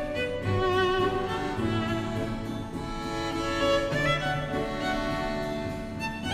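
Background music: bowed strings, led by a violin, playing slow held notes with vibrato.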